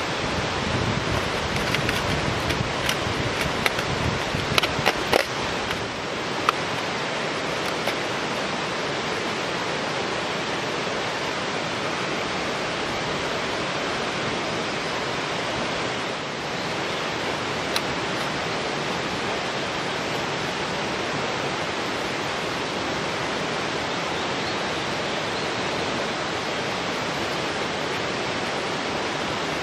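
Steady rushing of flowing water, even throughout. In the first six seconds it is broken by a run of light clicks and scrapes from a knife spreading miso on a magnolia leaf over foil, with a couple of single clicks later.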